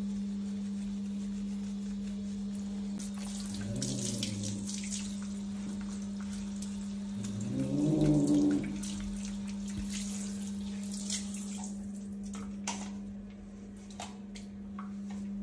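Water dripping and squelching as a hand squeezes and rubs a freshly bathed cat's soaking-wet fur, with a steady low hum underneath. Two short low moans come about four and eight seconds in, the second the loudest.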